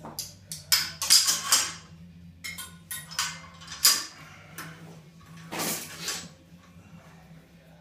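Steel parts of a homemade loading-pin rig (pin, weight plate and crossbar fittings) clinking and clanking together as they are handled and set up, in a string of irregular ringing knocks, with a longer scraping rattle about six seconds in.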